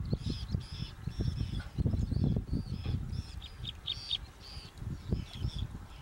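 A flock of whiskered terns calling: many short, high calls overlapping one after another, with a quick run of calls about four seconds in, over a low rumble.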